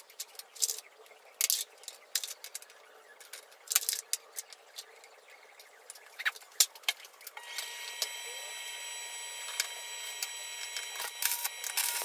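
Rusty steel nuts and scrap pieces clinking and clicking as they are set by hand into a steel frame on a metal workbench. About seven seconds in, a steady whine with several fixed pitches sets in from the welding machine, and near the end the crackle of MIG welding begins.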